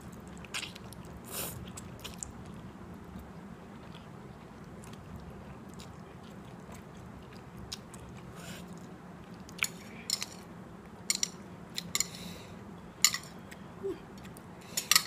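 A person chewing a mouthful of instant noodles, with sharp wet mouth clicks and lip smacks that become frequent over the last five seconds.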